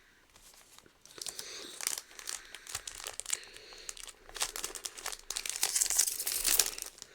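A trading card booster pack's wrapper being crinkled and torn open, a crackling rustle that starts about a second in and is loudest near the end.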